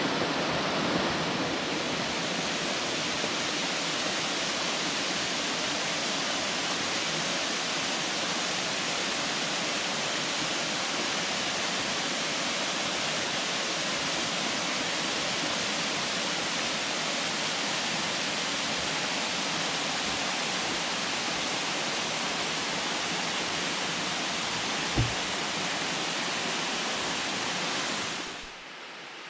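Waterfall cascading over rock into pools: a steady rushing of falling water, with one brief low thump near the end. The water sound fades out just before the end.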